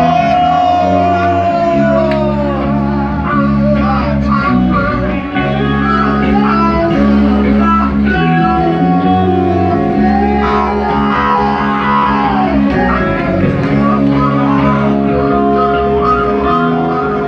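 Live rock band jamming on electric guitars, bass and drums. A lead guitar holds notes and bends them down in pitch, once near the start and again about halfway.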